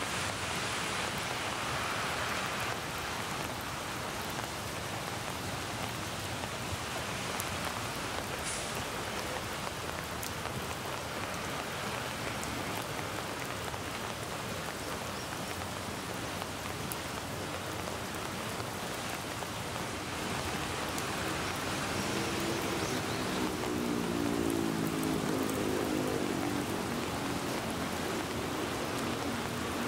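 Steady rain falling on leaves and wet pavement, with scattered individual drops. A low engine hum from street traffic swells and fades about three-quarters of the way through.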